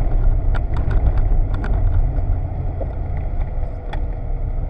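BMW E30 rally car driving at speed, its engine and the tyres on wet tarmac making a steady low rumble inside the cabin, with scattered sharp clicks.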